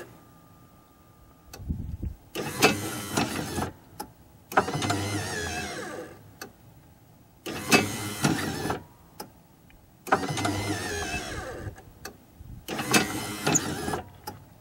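Repaired Kwikee RV entry step's electric gear motor running the step out and back in, five runs of about a second and a half each with short pauses between. Some runs have a falling whine and others end in a knock as the step hits its stop; the motor with freshly cleaned armature and brushes is working again.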